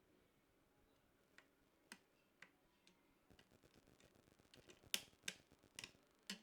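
Small sharp clicks and taps of computer parts being handled during a PC build: four spaced about half a second apart, then a quick run of faint ticks and four louder clicks near the end.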